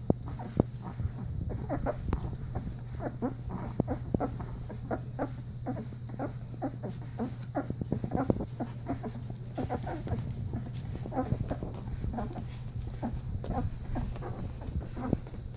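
Two-week-old Newfoundland puppies suckling at their mother: a continuous, irregular run of short smacking and squeaking sounds, over a steady low hum.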